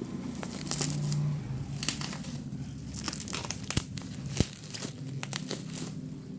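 Packing tape and cardboard being torn and crinkled as a box is opened, in a run of short ripping and rustling strokes with a couple of sharp clicks about four seconds in.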